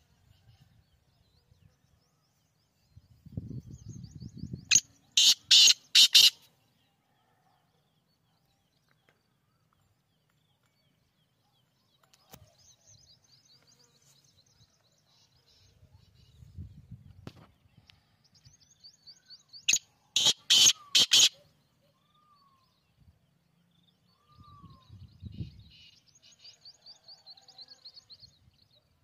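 Black francolin (Sindhi kala teetar) calling twice, each call a quick burst of four or five loud, sharp notes. Fainter rapid high ticking trills come before and between the calls.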